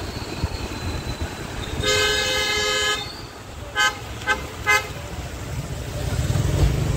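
Vehicle horn honking: one long honk of about a second, then three short quick toots, over a steady low rumble.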